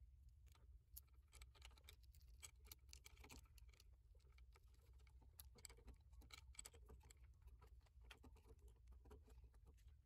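Near silence: faint, scattered small clicks and taps of wire ends and a plastic pressure-switch housing being handled during wiring, over a low steady hum.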